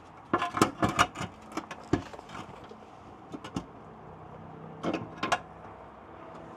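Irregular metallic clinks and knocks as transmission crossmember bolts are started by hand into the crossmember: a quick cluster in the first second, then scattered taps and a pair of sharper knocks about five seconds in.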